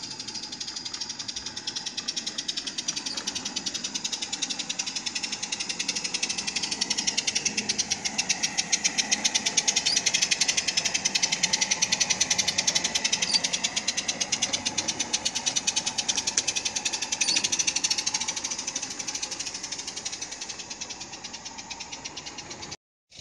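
Live-steam 16mm-scale Decauville 0-4-0 model locomotive running past, its exhaust beating in a rapid, even chuff with a steady hiss. It grows louder as it comes close, about halfway through, then fades as it draws away.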